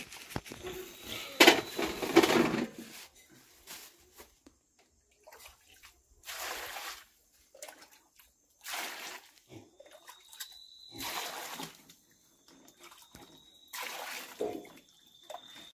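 Plums tipped from a plastic bag clatter into a steel basin, then water is poured over them from a plastic mug in four splashing pours, each about a second long, to wash the fruit.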